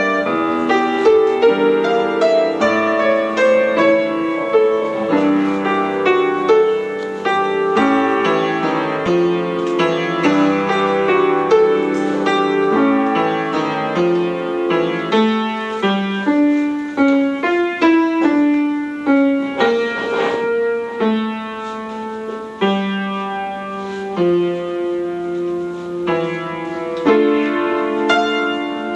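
Background piano music: a continuous run of notes.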